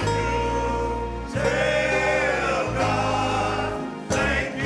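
Gospel choir singing the slow, long-held lines of a praise song, over steady instrumental accompaniment with low bass notes that step from chord to chord.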